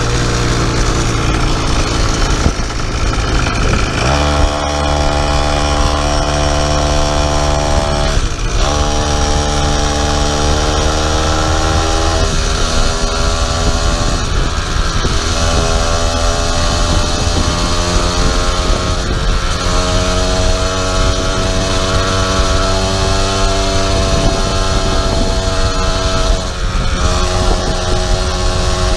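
50cc two-stroke pocket bike engine driving a motorized bicycle, running hard under load. Its pitch jumps up about four seconds in and several more times after that, sagging slowly between each rise.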